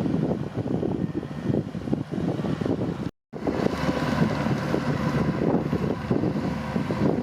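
Kubota DC-105X combine harvester running steadily, its engine and machinery giving a heavy rumble, with wind buffeting the microphone. The sound cuts out completely for a split second about three seconds in.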